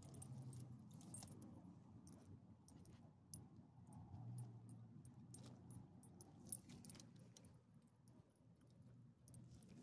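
Faint, scattered metallic jingling and light clicks from dog leash clips and collar hardware as the leashed dogs move about and sniff, with one sharper click past the middle.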